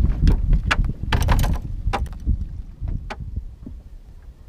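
A hooked perch swung aboard a small fibreglass boat: a run of sharp knocks and clacks as the fish and tackle hit the boat, the loudest cluster about a second in, over a low rumble of wind on the microphone. It goes quieter after about three seconds.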